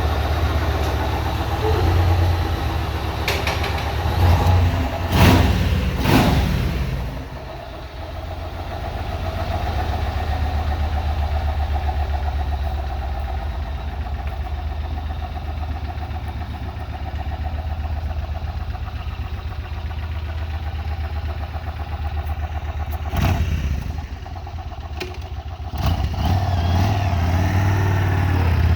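Yamaha Road Star Warrior's big V-twin engine running, with a steady low beat. It is revved up about four to six seconds in and again about 23 seconds in. The engine runs smooth after being brought back to life.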